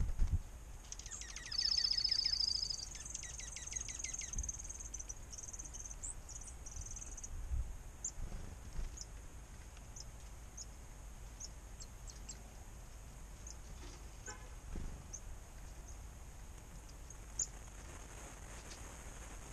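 Chickadees calling: a rapid run of high, repeated notes starting about a second in and lasting a few seconds, then scattered short, high chips through the rest, over faint outdoor background noise.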